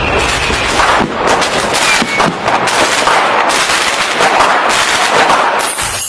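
Fireworks going off in a rapid, dense string of sharp bangs and crackles, with no pause between them.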